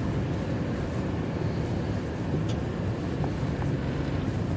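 Steady road and engine rumble of a car driving on a highway, heard from inside the cabin.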